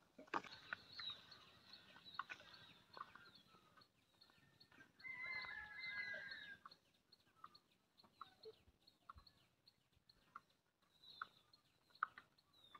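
Faint chicken clucking with scattered short bird chirps, and one longer drawn-out call lasting about a second and a half, about five seconds in.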